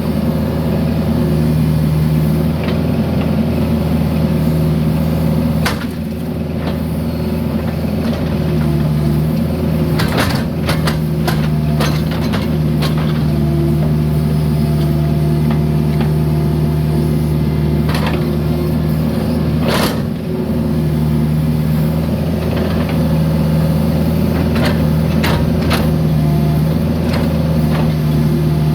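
Mini excavator's diesel engine running steadily under load. Sharp metallic clanks and knocks come at intervals, bunched together about a third of the way in and again near the end, as the machine works broken concrete.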